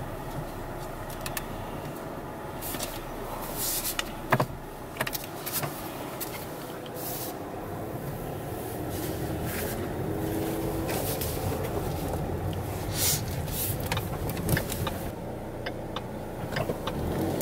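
Car interior: the engine and tyres running low and steady as the car backs out and pulls away, growing a little louder about halfway through, with scattered sharp clicks and knocks.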